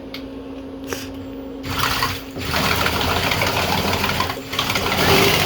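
Small electric motor spinning a 3D-printed outboard propeller with a steady whir; about a second and a half in, the propeller bites the water and a loud rush of churning, splashing water joins it and continues.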